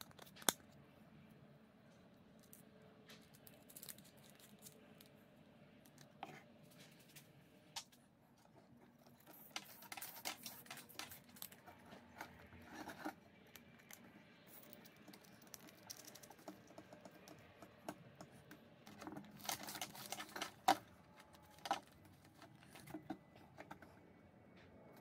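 Hands handling and fitting together grey plastic pipe fittings and a metal hose fitting: scattered clicks, taps and scrapes, with busier clusters of clatter around the middle and again about four-fifths through.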